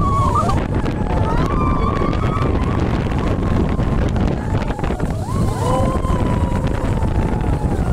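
Wind buffeting the microphone over the rumble of a roller coaster in motion, with riders' long, wavering screams, one near the start and one past the middle.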